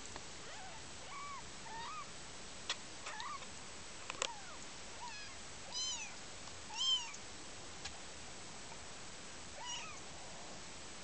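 Young Oriental Longhair and Siamese-variant kittens mewing: a string of about ten short, high mews, the loudest two about six and seven seconds in, with a few sharp clicks between them.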